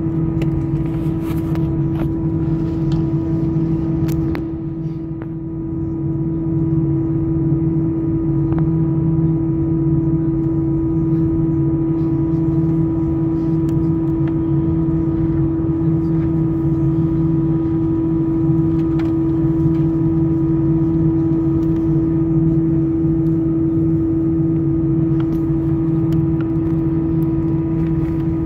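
Steady drone of a parked airliner heard from inside the cabin, with a constant mid-pitched tone over a low hum; it dips briefly about five seconds in.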